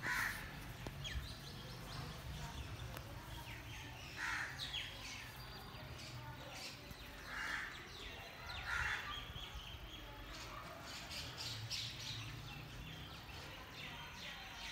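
Birds calling: four louder calls a few seconds apart, among scattered lighter chirps.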